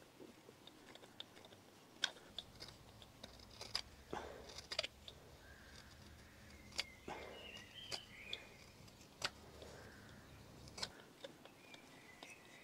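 Carving knife paring green wood on a kuksa bowl: scattered faint cuts and scrapes, a few seconds apart, as the outside of the bowl is smoothed and shaped.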